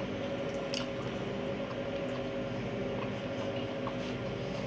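Wet, squishy chewing of a mouthful of fried pig ears, with a few faint clicks. A steady hum runs underneath.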